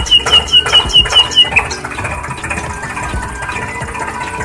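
A small engine-like mechanical sound with a rapid rhythmic pulse, about six beats a second, each beat carrying a high chirp. The chirping stops about a second and a half in, leaving a steadier, quieter running sound.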